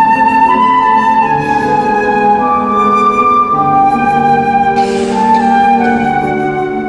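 Concert flute playing a melody of long held notes, with piano accompaniment underneath.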